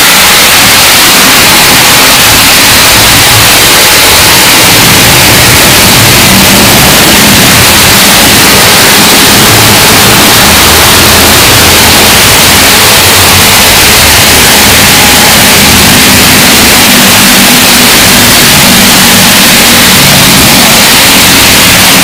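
Rain falling, the recording pushed to full volume until it clips into a loud, steady static-like noise.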